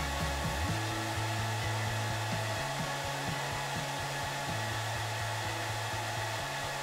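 TIG welding arc on thin sheet steel, a steady hiss as filler rod is fed into the puddle. Background music with a low bass line changing note about every two seconds runs underneath.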